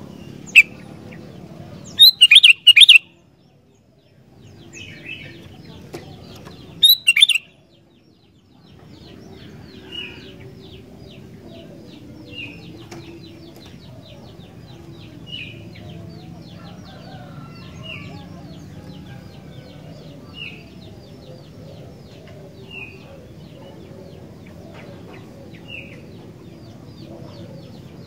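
Sooty-headed bulbul calls: a few loud bursts of rapid chirps in the first seven seconds, then a short call repeated about every two and a half seconds over a steady background hiss.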